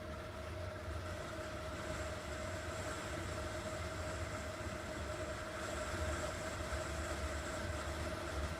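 A 50cc scooter engine running at a steady speed, with a constant drone, and low wind rumble on the microphone.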